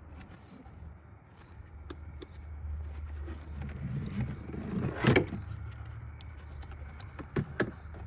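Hand tools working at a stripped coolant bleeder screw on a supercharger: scattered metal clicks and scraping build to a loud knock about five seconds in, then two sharp clicks near the end, over a steady low hum.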